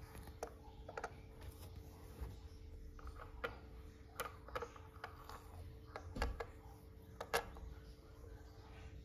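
Bobbin and embroidery-machine bobbin case being handled and fitted together: about seven small, sharp clicks at irregular intervals, the two loudest in the second half, over a faint steady hum.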